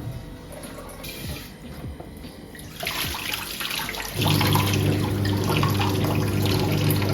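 Water running from a tap, starting about three seconds in as a steady rushing hiss. About a second later a steady low hum joins it.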